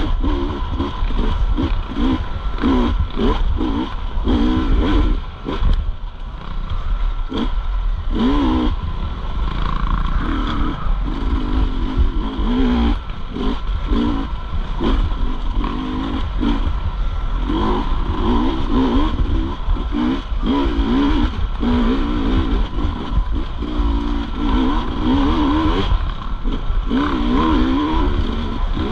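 250cc off-road motorcycle engine being ridden hard, its pitch rising and falling every second or so as the throttle is opened and shut, with clattering knocks from the bike and a constant low rumble.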